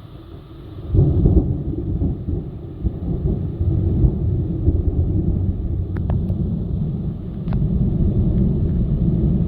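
Thunder: a loud crack about a second in, then a long low rumble rolling on.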